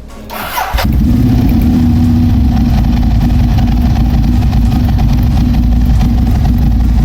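Ducati Monster 1100's air-cooled L-twin engine running loud through its exhaust. It comes in abruptly a little under a second in and then holds a steady pitch.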